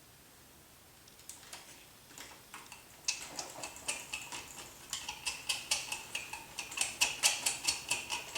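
Rapid run of light metallic ticks, about four a second, each with a short ringing tone. It comes from small hardware and tools being worked on the RC helicopter's motor and main gear assembly, and it starts faint and becomes steady and louder about three seconds in.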